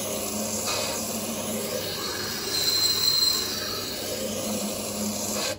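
Scheppach Tiger 3000 VS wet sharpener running, its water-cooled grindstone grinding a knife edge held in the knife jig: a steady scraping hiss over the motor's low hum, with a thin high squeal that swells about three seconds in.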